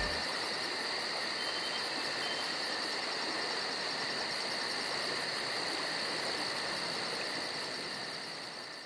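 Insects chirping in woodland: a steady high trill with a faster, very high pulsing chirp of about five a second above it, which pauses briefly in the middle. The sound fades out near the end.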